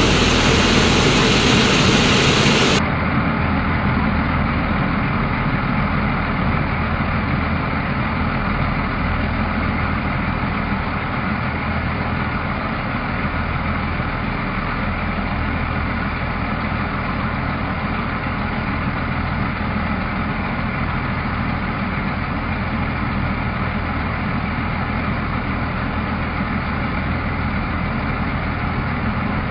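Pitts S-2B's six-cylinder Lycoming engine and propeller running steadily in level flight with power up. About three seconds in, the sound turns duller and a little quieter, then holds steady.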